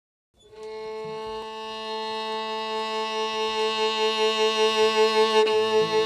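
Violin holding one long bowed note that swells steadily louder, a wavering vibrato coming in partway through. A low bass note joins it just before the end.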